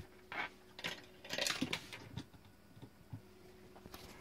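Scattered light clicks, knocks and small metallic clinks of hardware being handled while antennas are fitted to a control station, with a short busier rattle about a second and a half in. A faint steady hum runs underneath.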